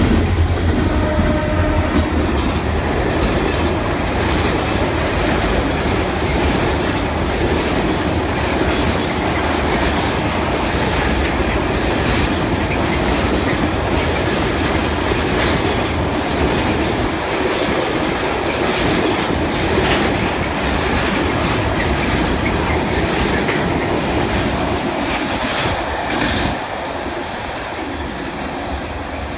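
Freight train of about twenty tank wagons, hauled by two RENFE class 333 diesel locomotives, passing at speed. A heavy low engine rumble comes first as the locomotives go by, then the wagons' wheels clatter rhythmically over the rail joints. The sound drops off about 26 seconds in as the last wagon passes and the train moves away.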